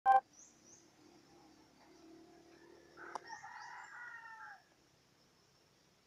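A rooster crowing once, about three seconds in, its call dropping in pitch at the end, over faint high bird chirps. A brief sharp blip at the very start is the loudest sound.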